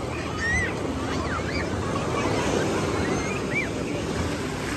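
Waves washing on a beach as a steady noisy wash, with faint distant voices and scattered short, high calls over it.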